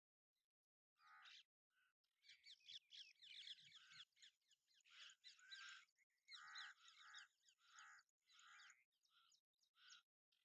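Jungle babblers calling: a run of many overlapping calls from about two to six seconds in, then single short calls repeated about twice a second, as in a squabbling flock.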